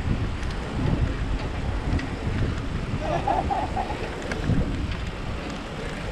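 Wind buffeting the microphone: a continuous gusty low rumble, with a short higher warbling sound about three seconds in.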